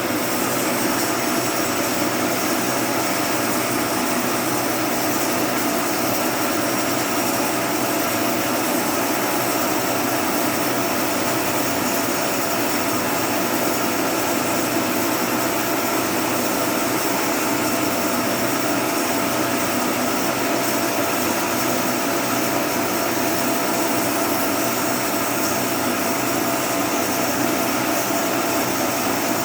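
Homemade mini sawmill running steadily, its motor and blade spinning at an unchanging speed with a constant whine.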